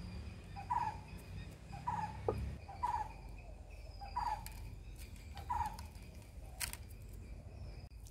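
A bird calling five times, short calls about a second apart, over a faint steady high-pitched insect-like tone, with a single sharp click near the end.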